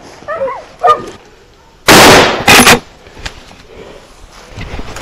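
Two shotgun shots fired in quick succession, about half a second apart, both very loud with a short echo. Before them come a few high yelps from a hunting dog.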